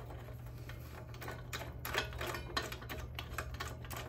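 Ratchet wrench clicking in quick, fairly even strokes, about three a second after the first second, as the 19 mm bottom bolt of a brake caliper bracket is backed out. A steady low hum runs underneath.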